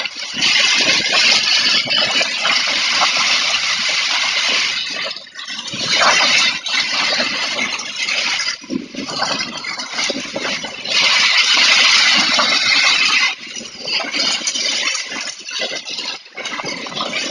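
Heavy rain driven by strong, gusting wind, the rush of it swelling and easing, with the loudest surges in the first five seconds and again about eleven to thirteen seconds in.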